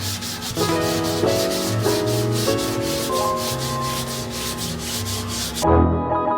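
Sandpaper rubbing over body filler on a car's aluminium quarter panel in rapid, even back-and-forth strokes, stopping abruptly near the end. Background music with plucked notes plays throughout.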